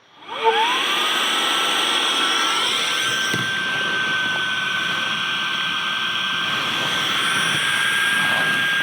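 Electric air pump starting up with a whine that rises over about a second, then running steadily with a rushing of air, inflating an inflatable tent.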